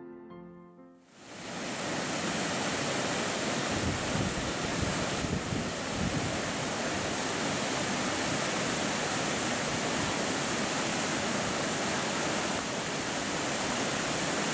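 Guitar music fades out in the first second, then a fast mountain stream rushes over rocks with a steady, even roar of white water.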